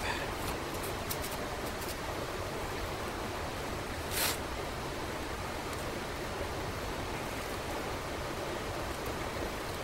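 Steady background hiss, with a few faint clicks and one short scrape about four seconds in as the cast-iron hydraulic pump sections are handled on the bench.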